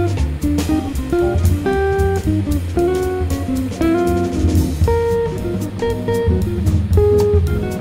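Background music: a guitar tune with plucked notes over a drum beat.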